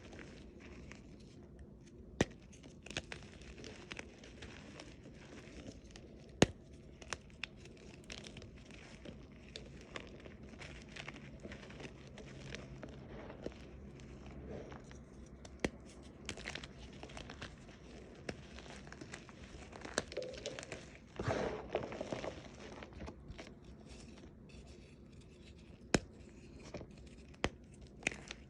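Crunchy chalk reforms being crushed and crumbled, with sharp cracks now and then and a louder burst of crunching about three-quarters of the way through.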